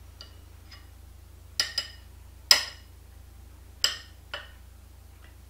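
Metal spoon clinking against a ceramic soup bowl: several short, sharp, ringing clinks, the loudest about halfway through.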